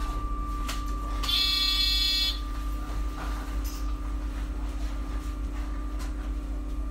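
Front-door warning buzzer of a MAN Lion's City Hybrid bus sounding once for about a second, the signal that the door is about to close, over the bus's steady hum.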